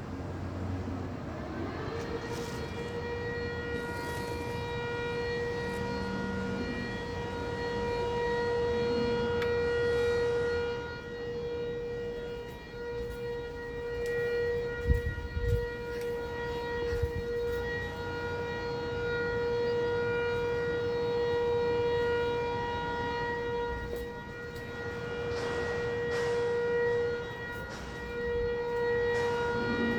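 Motor-driven air-raid siren winding up over about two seconds to one steady long tone, heard from indoors, its loudness swelling and fading slowly; a single long tone is Taiwan's all-clear signal. A couple of low thumps sound near the middle.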